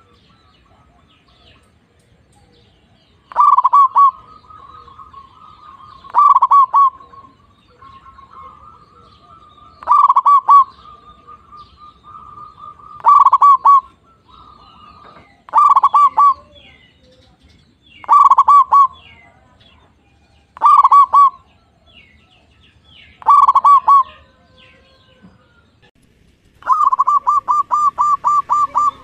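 Zebra doves (perkutut) singing: short phrases of a few quick, ringing coo notes, repeated about every two and a half to three seconds. Near the end a second bird gives a longer run of about ten rapid notes.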